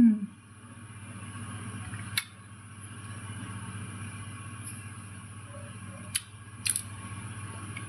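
A person chewing a mouthful of red pomelo with closed lips, with three short mouth clicks spread through, over a steady low hum.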